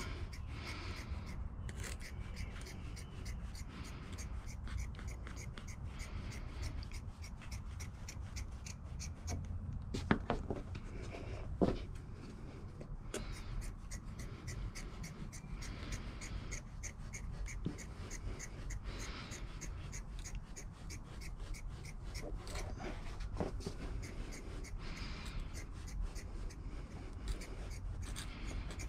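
Scissors snipping through four-way stretch carpet, trimming it to the edge of a plywood panel: a steady run of short snips, two or three a second, with a couple of louder knocks about ten and twelve seconds in.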